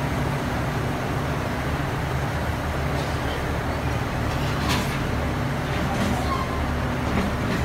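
A passenger train standing at a platform with its engine running, giving a steady low hum, and a short hiss about halfway through.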